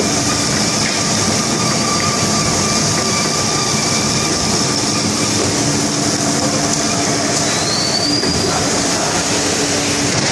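Semi-automatic box-making production line running: a steady mechanical din with a strong high hiss and a constant low hum. A short rising whine comes about eight seconds in.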